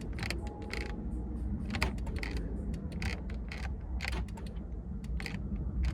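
Irregular small clicks of key fob buttons being pressed over and over while the 2002 Toyota 4Runner's factory alarm fails to unlock the doors. A faint short beep comes about half a second in, over a low steady hum.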